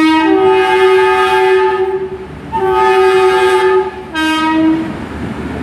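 Class 175 diesel multiple unit's two-tone horn sounding three blasts as it departs: a long one that steps from the low note up to the high note, a shorter high one, then a short low one.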